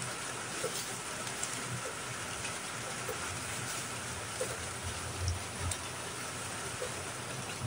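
Steady rain falling, an even hiss with scattered light drip ticks.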